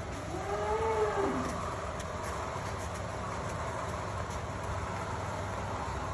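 A cow gives one short moo, about a second long, rising and then falling in pitch near the start. Under it runs a steady background noise.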